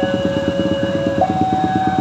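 Railway level-crossing warning alarm sounding: a two-tone electronic signal alternating between a low and a higher note, switching up about a second in, over a rapid pulsing beat of about ten strokes a second.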